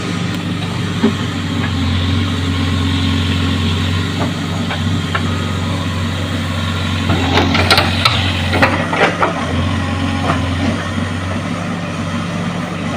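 JCB excavator's diesel engine running steadily while digging, with a cluster of knocks and clatters about seven to nine seconds in.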